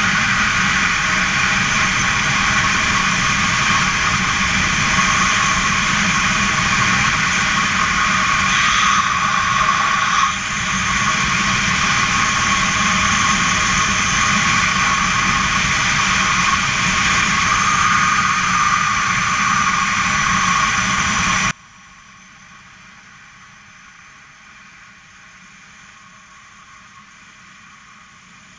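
Loud steady rush of wind over a helmet camera during a wingsuit flight, with steady whistling tones in it. About 21 seconds in it cuts off suddenly to a much fainter steady hiss.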